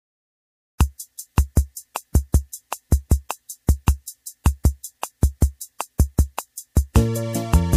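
Background music: a drum-machine beat of kick and snappy hits on its own after a moment of silence, with the full track (bass and melody) coming in near the end.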